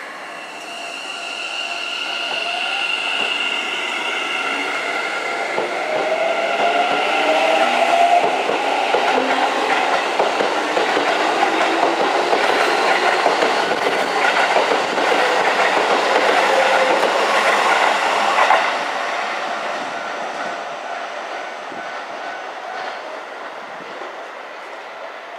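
Red Keikyu electric train pulling out of the station and passing close by: its traction motor whine rises in pitch as it accelerates, with wheels clacking over the rail joints. It grows louder as the cars go by, peaks when the last car passes at about three quarters of the way in, then fades as the train draws away.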